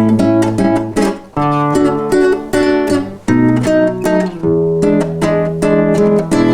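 Instrumental close of a song with no singing: a run of plucked and strummed chords with held notes ringing between them.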